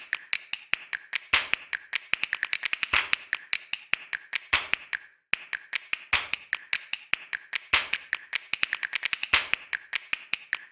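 Rapid, irregular run of sharp clicks, several a second, with a brief pause about five seconds in.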